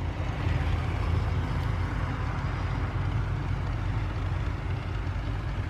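Massey Ferguson 1114 tractor's diesel engine running steadily under load as the tractor pulls a tillage implement through the soil, a constant low rumble.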